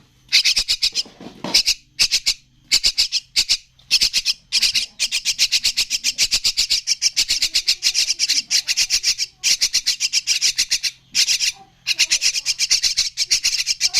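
Young Javan mynas (jalak kebo chicks) calling in rapid chattering runs of harsh notes, broken by short pauses.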